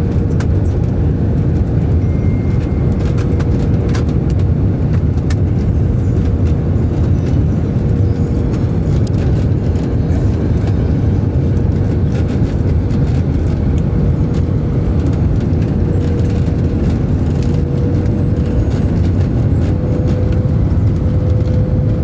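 Airliner cabin noise: a steady low rumble of jet engines and rushing air, with a held engine tone that rises slightly near the end. A few faint rattling clicks come in the first few seconds.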